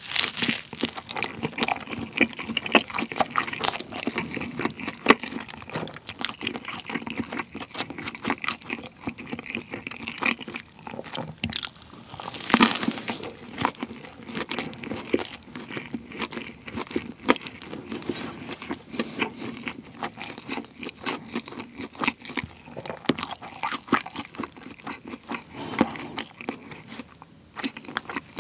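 Close-miked chewing and crunching of a Mom's Touch Incredible Burger, a fried chicken thigh patty burger with egg and ham, its crisp fried coating crackling between the teeth. A bite lands near the start, with louder crunching again about twelve seconds in and near the end.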